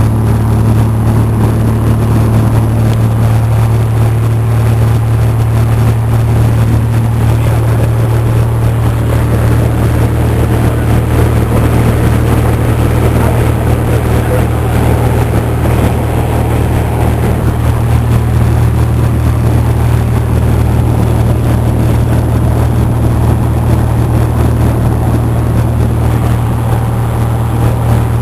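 Cessna 172's piston engine and propeller running steadily in flight: a loud, even drone with a strong low hum.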